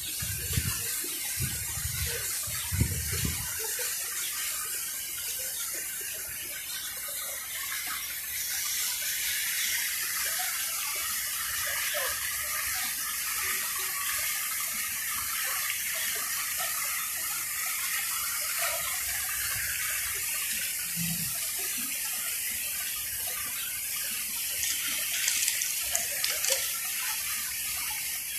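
Pond fountain splashing steadily, its water falling back into the pool in a constant gushing hiss. A few low thumps come in the first few seconds.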